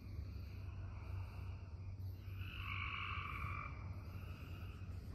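A single drawn-out animal call, about a second and a half long, starting a little after two seconds in, over a low steady hum.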